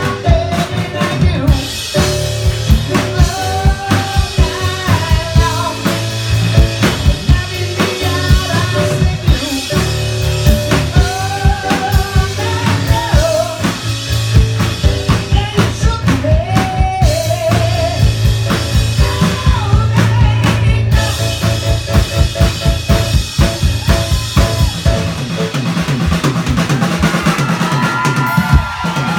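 Live band music: a drum kit played in a steady beat with snare, bass drum and rim clicks, under piano, a bass line and a singing voice. Near the end the drumming thins out while held chords ring on.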